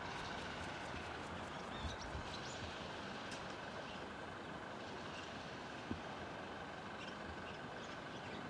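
Steady outdoor background noise like distant traffic, with a faint steady whine, a few faint, brief high chirps from small birds, and a couple of soft knocks.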